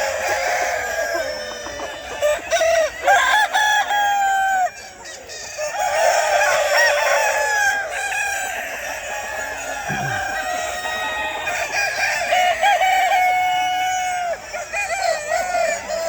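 A large flock of farm chickens calling and clucking over one another without a break, with some longer, held calls among them.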